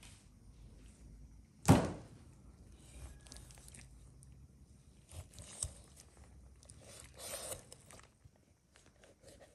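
One sharp thunk on the wooden cutting board about two seconds in, then a knife slicing and scraping through the skin and flesh of a whole raw chicken, with a few light knocks and a short rustle near the end.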